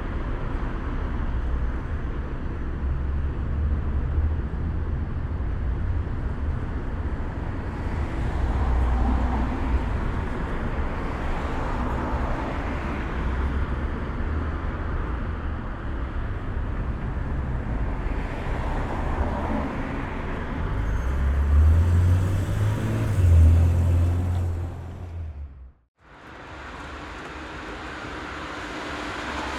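Road traffic noise: a steady rumble of passing vehicles, swelling louder about 22 to 24 seconds in. It cuts out abruptly at about 26 seconds and comes back quieter.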